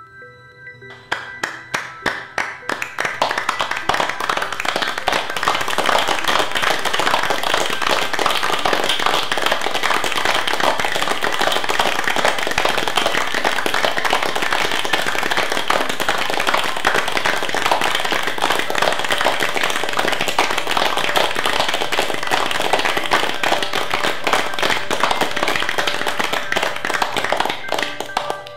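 Applause from many hands clapping. It begins with a few scattered claps about a second in, swells within a few seconds into a dense, steady ovation, and dies away near the end.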